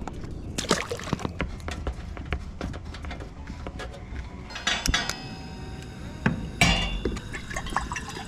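A run of light clicks, knocks and metallic clinks as camp-stove gear is handled, then water poured from a plastic bottle into a metal saucepan on a camp stove.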